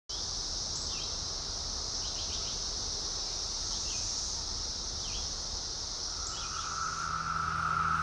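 Chorus of periodical cicadas: a steady, high-pitched shrill with short downward chirps over it every second or so. About six seconds in, a lower-pitched cicada drone and a low hum come in and the sound grows louder.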